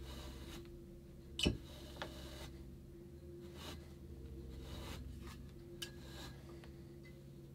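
Wool being combed with wooden Russian paddle combs: the hand-held comb's metal tines swish and scrape through fleece held on the clamped comb in repeated strokes, with a sharp click about a second and a half in as the tines knock together. A steady low hum runs underneath.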